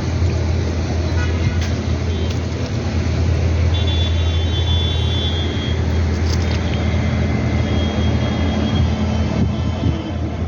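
Road traffic: vehicle engines running steadily with a continuous low rumble and tyre noise.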